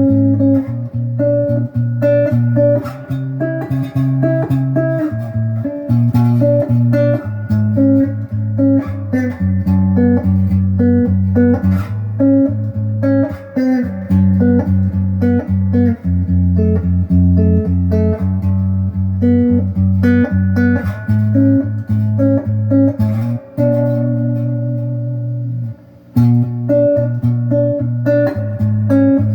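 Electric guitar, a Les Paul-style Miller clone on its stock pickups in the middle pickup position, played through an amp: a continuous run of low-register riffs and single notes, with a short break about 26 seconds in.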